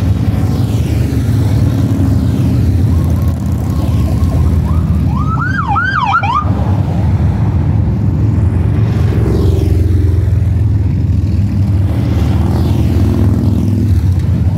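Motorcycle engines rumbling steadily as bikes ride past. About five seconds in, a police siren gives a short burst of about four quick up-and-down whoops.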